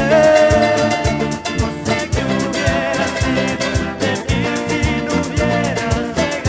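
Upbeat Latin-style band music with a steady drum beat, sustained melody and guitar.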